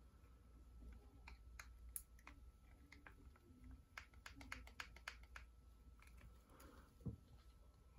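Near silence: faint room tone with scattered light clicks and taps, a quick run of them about four to five seconds in, and one soft low thump about seven seconds in.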